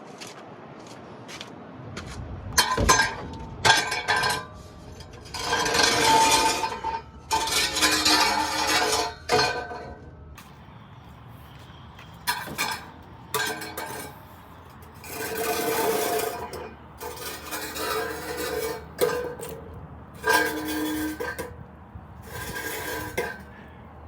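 Metal clinking and clanking in a dozen or so separate bursts, some briefly ringing, as metal tools and exhaust parts are handled during a header install.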